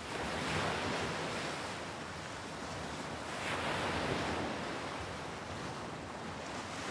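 Ocean waves washing, a steady rush of water that swells gently twice.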